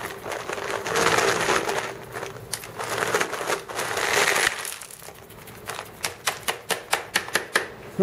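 Shop vacuum sucking up crushed stone from a bucket, the stones rushing and rattling through the hose in uneven surges. About four and a half seconds in it quiets to a quick run of sharp clicks as stones knock in the hose. The stones are big enough to get caught in the hose and inlet openings.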